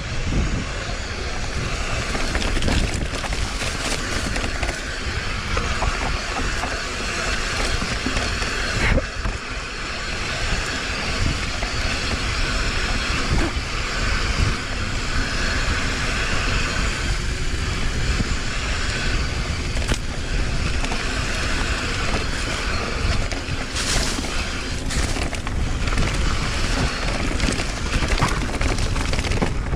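Mountain bike ridden fast down a dirt trail: tyres rolling over the ground and the bike rattling over bumps, with scattered sharp knocks, under steady wind rumble on the microphone.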